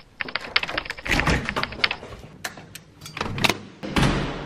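Door hardware clicking and rattling: a run of quick clicks from a lever door handle and latch, then scattered clicks and a heavier knock with a brief rush of noise near the end as the door shuts.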